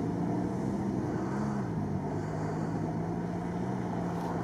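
Off-road car's engine running hard on the course, its pitch rising briefly about a second and a half in, then dropping and holding steady.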